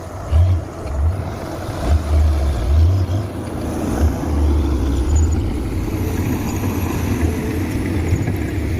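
Komatsu PC200 excavator's diesel engine running under load while it digs and loads. There is a low rumble that comes and goes for the first three seconds and holds steady from about four seconds in.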